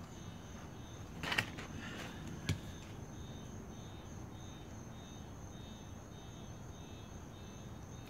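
Pieces of a broken concrete test slab being handled: a short scraping clatter about a second in and a single sharp knock about two and a half seconds in. Insects keep up a steady high hum in the background.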